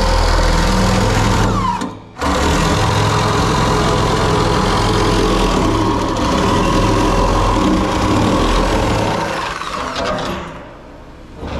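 An engine-driven machine running steadily and loudly. It drops out briefly about two seconds in and dies away near the end.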